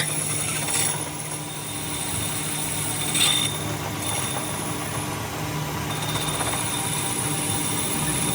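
A machine running steadily, with a low hum under several high-pitched whines, and a brief louder rasp about three seconds in.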